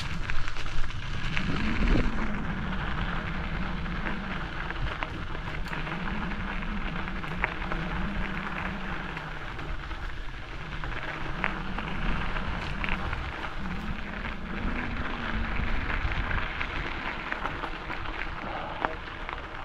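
Bicycle on the move: steady crunching and crackling from the tyres with many small scattered clicks, over a low hum that slowly rises and falls.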